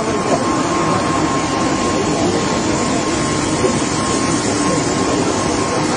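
Aircraft engine running steadily: a constant rushing roar with a thin, high whine held at one pitch, over a crowd's chatter.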